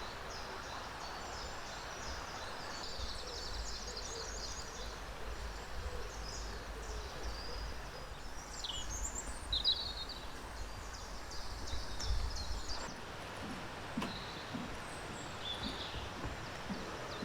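Wild birds chirping and calling, with many short high notes and quick rising and falling whistles that are busiest midway. A steady rushing background and a low rumble lie underneath.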